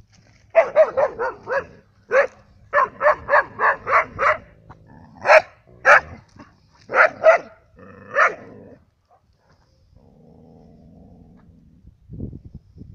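Dog barking in quick runs: a burst of about five rapid barks, then about seven more, then a few spaced-out barks, stopping about nine seconds in.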